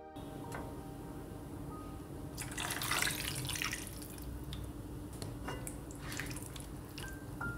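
Liquid splashing in a kitchen, loudest for about a second around two and a half seconds in, with a few light clicks.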